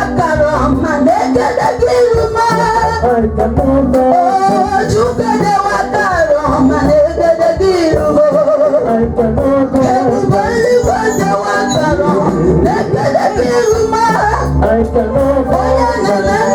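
Live gospel song: a band playing with a steady bass beat under singing voices.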